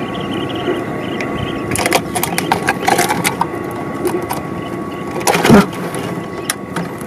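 Close handling noise as a hooked snakehead is unhooked in a plastic basket: a run of clicks and rattles from the metal pliers and the lure's hooks, with one louder thump about five and a half seconds in.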